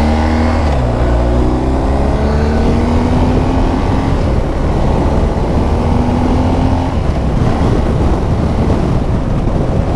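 BMW R1250 GS Adventure's boxer-twin engine under way: its pitch climbs over the first few seconds as the bike accelerates, then holds steady at cruising speed, over constant wind and road rush.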